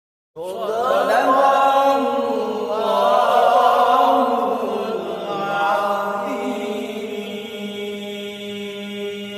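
Melodic Quran recitation (tilawah) by a male voice: an ornate, winding melismatic line that starts sharply about half a second in and settles into a long held note from about six seconds on.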